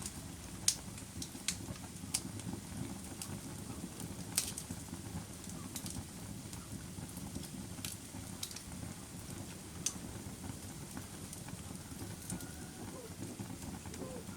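Campfire burning, with a steady low rumble of flames and sharp wood crackles and pops scattered irregularly through it. The loudest pop comes within the first second and another strong one around four and a half seconds in.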